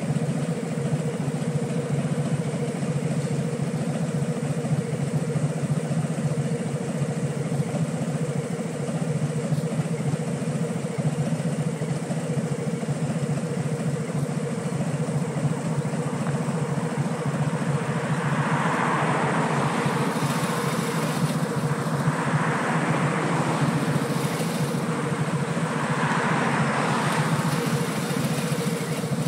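Harley-Davidson touring motorcycle's V-twin engine idling steadily while stopped in traffic. Three swells of hiss rise and fall in the second half.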